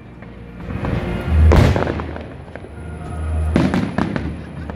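Aerial fireworks exploding, with a loud boom about a second and a half in and a quick cluster of bangs near the end, each followed by a low rumble, over music played for the display.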